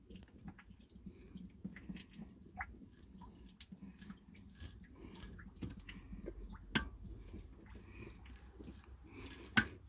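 Faint scattered crackles and small clicks of hands handling the packed sawdust in the stove, with a sharper click about seven seconds in and another near the end.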